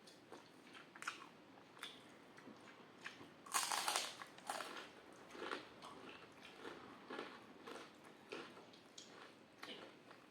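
A person eating crisp fried food: one loud crunching bite about three and a half seconds in, then steady chewing with many small crackles and clicks.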